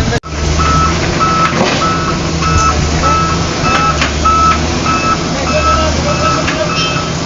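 A heavy vehicle's reversing alarm beeping evenly, about two beeps a second, over a diesel engine running. The sound drops out for a moment just after the start.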